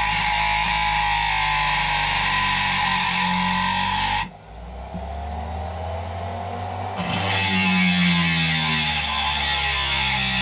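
Dremel rotary tool with a thin diamond cutting disc cutting through the excavator cab: a steady high whine over a gritty hiss. About four seconds in the cutting noise drops away and the motor's whine rises in pitch as the disc spins free, then the disc bites back into the cut about seven seconds in.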